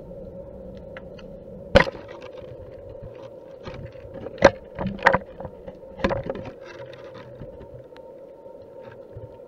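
A steady hum with a few sharp knocks, the loudest about two seconds in and a cluster around the middle, plus fainter ticks.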